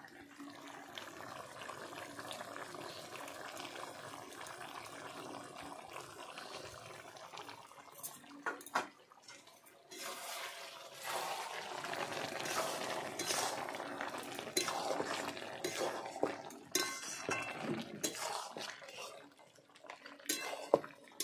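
Chicken curry simmering in a metal kadai, a steady bubbling hiss. About ten seconds in, a metal spatula starts stirring and scraping through it, and it clinks sharply against the pan several times near the end.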